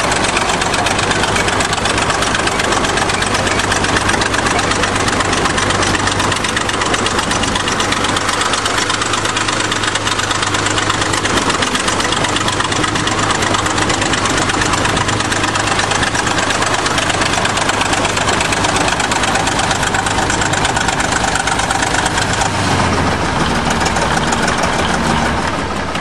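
International Harvester TD-20 crawler dozer's diesel engine running steadily as the machine drives under its own power on its rebuilt clutch. The engine note changes about three and a half seconds before the end.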